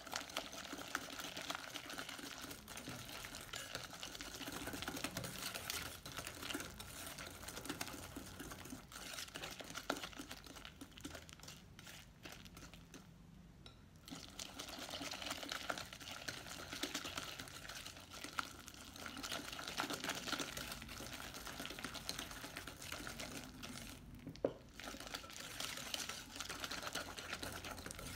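Wire balloon whisk beating a thick butter-and-egg batter in a glass bowl: fast rhythmic clicking and scraping of the wires against the glass. The clicking eases off briefly twice, about halfway and near the end.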